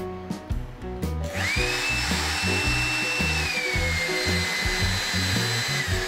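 Makita 18V cordless stick vacuum with push-button (one-touch) controls switched on about a second and a half in: its motor spins up to a steady high whine with a rush of airflow, then drops to a lower steady pitch a couple of seconds later as the power setting is lowered. Background music plays underneath.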